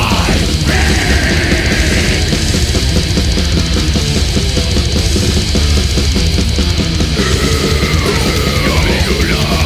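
Death metal: loud, dense distorted guitars, bass and drums, with several squealing notes that slide down in pitch near the end.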